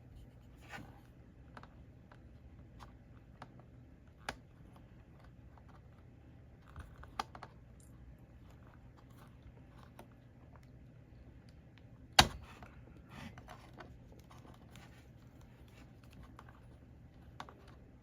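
Scattered light clicks and taps of small tools being handled on a workbench during desoldering, with one sharp, much louder knock about twelve seconds in, over a faint steady low hum.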